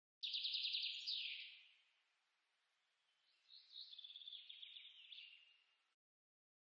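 A songbird singing: a fast trill of high notes that slides down and fades out after about a second and a half, then after a pause a second, softer phrase of quick notes. The song starts and stops abruptly, like a cut-in clip.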